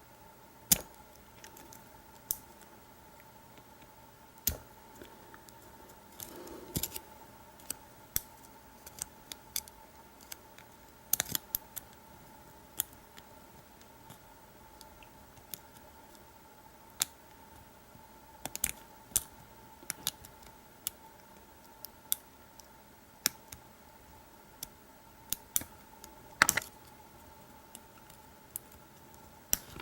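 Lock pick working the pin stacks of an American Lock 5200 padlock under heavy tension: irregular small metallic clicks and taps, a few sharper and louder, as pins are lifted and spring back during single-pin picking.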